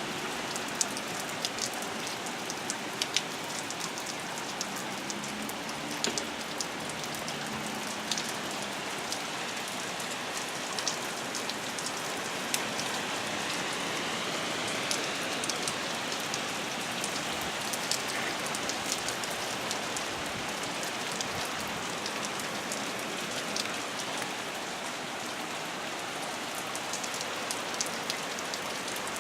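Steady rain falling, with many sharp drops ticking on a hard surface.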